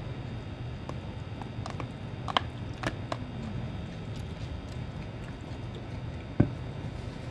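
Metal spoon and fork clicking against a plastic food tub a few times as they are laid down, then a stainless steel tumbler set down on a desk with a single knock about six seconds in, over a steady low background hum.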